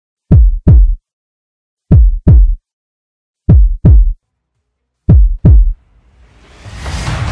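Heartbeat-style sound effect: four deep double thumps, about one and a half seconds apart. Music fades in near the end.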